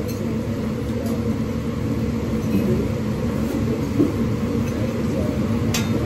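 Restaurant background din: a steady low rumble with indistinct diners' voices, and a light click about four seconds in.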